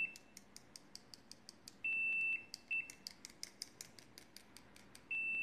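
Sanwa CD732 multimeter's continuity beeper giving steady high-pitched beeps: one about half a second long around two seconds in, a short one just after, and another near the end. Light clicks come several times a second as the gold-tipped test lead probes tap together. The beeps lag behind contact, a slow continuity response.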